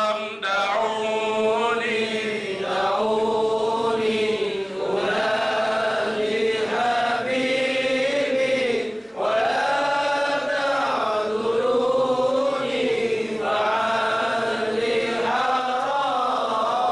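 A man singing a qasidah, an Arabic devotional song in praise of the Prophet, solo and unaccompanied, with long held notes that bend and ornament in pitch. There are short breaks for breath about half a second and nine seconds in.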